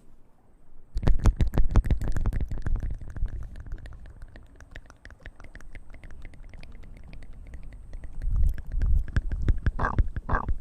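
A girl burping: a long burp made of rapid low pulses starts about a second in and fades over several seconds. A second loud burp comes near the end.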